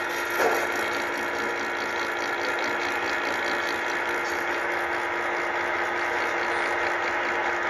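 A machine running steadily: a constant hum over a noisy mechanical sound, with a brief louder knock about half a second in.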